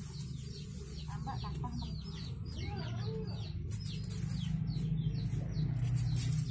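Chickens clucking, with many short high falling chirps, several a second, over a steady low hum.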